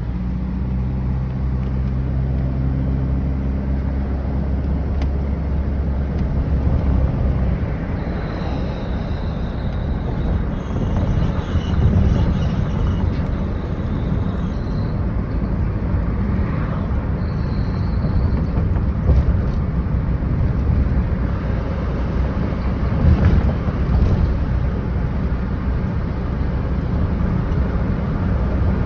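2004 Toyota Tacoma pickup driving, its engine and road noise running steadily, with a high-pitched chirp that comes and goes a few times. The owner reports this chirp when he lets off the gas above about 30 mph.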